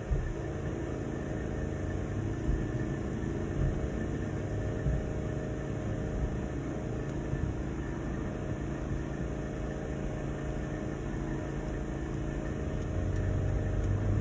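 A steady low mechanical hum with a rumble underneath, broken by a few soft knocks, growing a little louder near the end.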